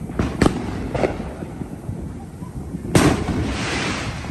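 Fireworks going off: a few sharp bangs in the first second, then a louder bang about three seconds in, followed by about a second of crackling.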